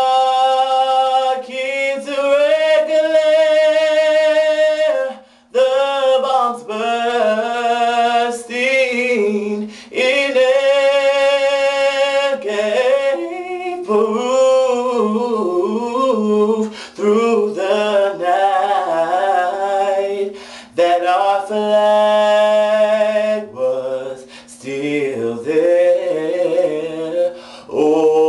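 A young man singing solo with no accompaniment, holding long notes and bending others through quick runs, with short breaks for breath between phrases.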